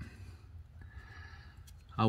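Quiet background with a low steady hum and a faint breath.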